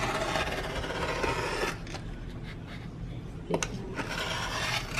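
Rotary cutter blade rolling through canvas along a ruler on a cutting mat: a scratchy cutting pass lasting about a second and a half, then a second, shorter pass near the end that opens with a click.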